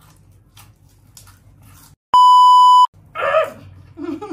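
Censor bleep: a loud, steady 1 kHz beep lasting just under a second, about two seconds in, with the rest of the audio muted around it. Before it come faint crunching clicks of dry noodles being eaten, and a voice starts just after it.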